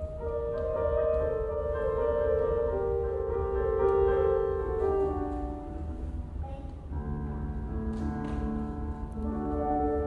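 Small live string ensemble with keyboard playing a slow classical-style piece in held notes; lower parts come in about seven seconds in.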